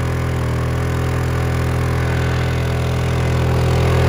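Honda EU2000i inverter generator running steadily under an overload, growing a little louder near the end. It is loaded past its rating but has not yet tripped, and its output voltage has sagged to about 107 volts.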